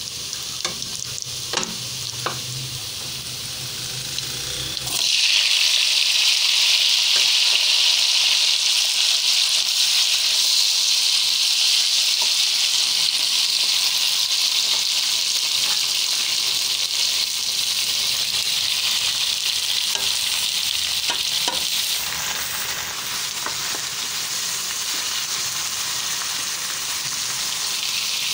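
Food frying in hot oil in a pan, stirred and scraped with a wooden spatula: sliced onions first, with a few sharp taps of the spatula, then about five seconds in the sizzling turns suddenly much louder and stays steady as diced potato, later with green bell pepper, fries in the pan.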